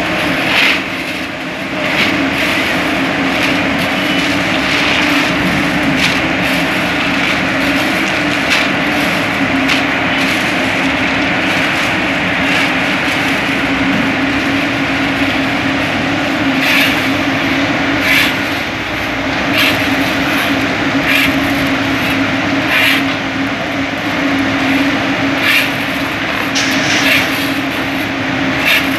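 Diesel engine of a concrete mixer pump machine running steadily, with a sharp knock every second or two.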